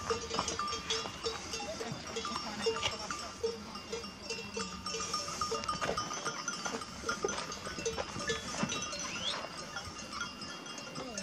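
A large penned flock of sheep, with bells clinking and ringing and sheep bleating now and then.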